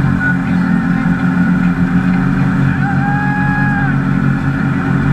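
A towing boat's engine running steadily at speed, under the rush of water and wind. About three seconds in, a brief held high tone sounds for about a second.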